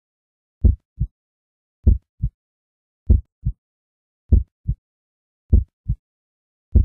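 Slow heartbeat: deep lub-dub double thumps, about one beat every 1.2 seconds, the first thump of each pair louder than the second.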